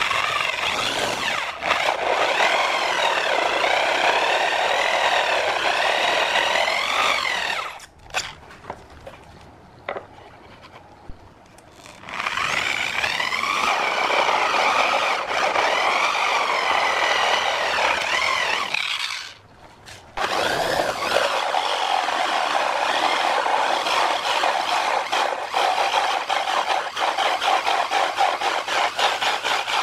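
Power drill spinning an adjustable circle hole cutter through a pine board, its motor whine rising and falling as the cutter bites into the wood. It runs in three long stretches, stopping for a few seconds about eight seconds in and briefly again near twenty seconds.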